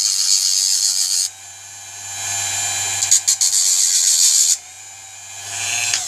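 Small handheld rotary tool with an abrasive disc running in short spells as it cleans up the brake pad retaining pin: a steady high-pitched whirr for about a second, stopping, then running again for a couple of seconds in the middle and briefly near the end.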